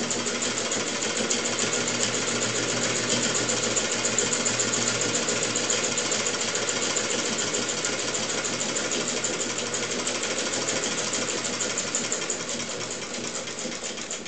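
Hand-cranked Standard Manufacturing Company sewing machine, a Singer 15K clone, stitching through denim: a rapid, even mechanical clatter of the needle and shuttle mechanism, quietening over the last couple of seconds.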